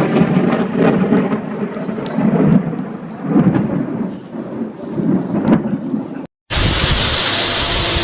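Thunder rumbling low and uneven, with rain falling and a few sharp crackles. About six seconds in it cuts off and gives way to a steady hiss of rain.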